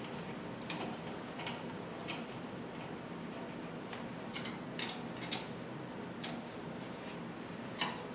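Irregular light clicks of a small hand tool and fasteners against an aluminium extrusion frame while parts are screwed in place inside it, over a steady low hum.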